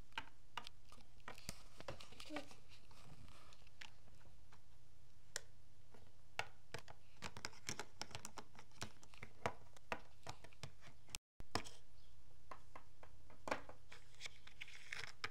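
Small plastic toy pieces clicking and tapping as they are handled and set against a wooden table: irregular light clicks over a steady low hum, with the sound cutting out for a moment near the two-thirds mark.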